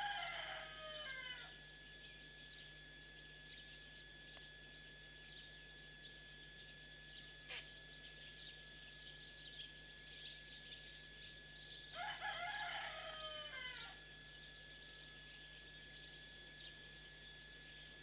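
A rooster crowing twice, faint, once at the start and again about twelve seconds in, each crow falling in pitch.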